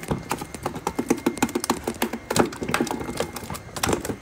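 Freshly netted live crucian carp flopping and slapping about, a rapid, irregular patter of wet slaps and knocks, several a second.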